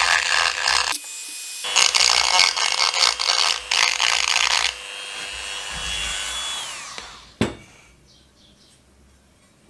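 Hand-held rotary tool with a small bit grinding on a metal figurine in loud rasping stretches. About five seconds in it runs free with a steady high whine that falls away as the motor winds down, followed by a single sharp click.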